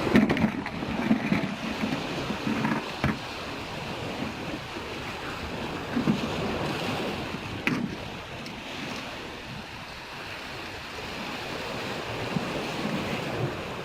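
Sea waves washing against the shore with wind on the microphone, and a few short knocks.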